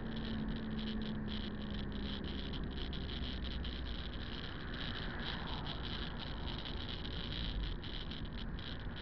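Steady road noise inside a moving car: a low engine and tyre rumble on wet asphalt, with a high, rapidly fluttering hiss over it.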